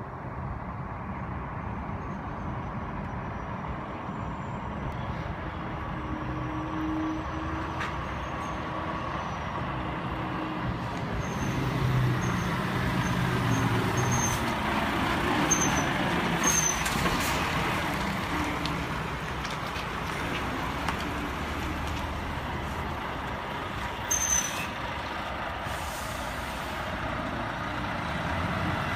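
Diesel engines of articulated lorries, a Scania and a Volvo FH tractor unit, running as they pull out and drive past, loudest midway as the Scania passes close. Brief high squeaks and short hisses of air brakes come through, the sharpest near the end.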